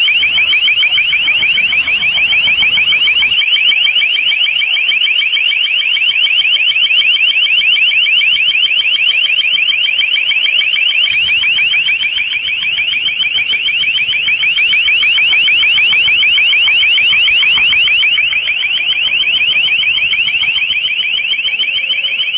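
LRAD 500X long-range acoustic device sounding its deterrent alert tone: a loud, high-pitched warble of rapidly repeating rising sweeps, continuous and unbroken.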